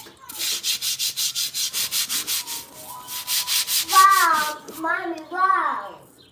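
Brisk back-and-forth scrubbing on a concrete floor, about four strokes a second, working at dried residue stuck to the concrete, stopping about three and a half seconds in. Then a high-pitched voice calls out three times, briefly.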